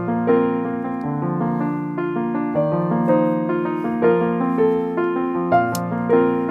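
Background music: an electric piano playing sustained chords over low bass notes, the chords changing about every second.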